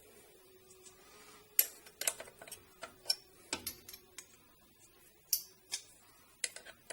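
Irregular light clicks and taps of a hand tool being handled as a size 8 Allen key is fetched and fitted over the top of a rear strut's shaft.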